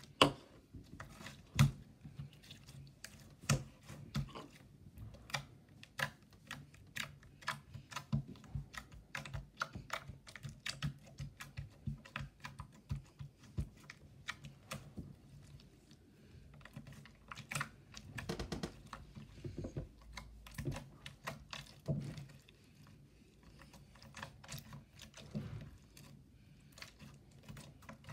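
Translucent yellow slime being pressed, poked and folded by hand, giving a long, irregular run of sticky clicks and pops, several a second, with a denser crackle partway through.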